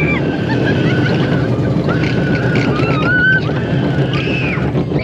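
Small family roller coaster car running along its track, with wind rushing over the microphone and the rumble of the ride. High drawn-out squeals come and go over it, a child screaming with excitement.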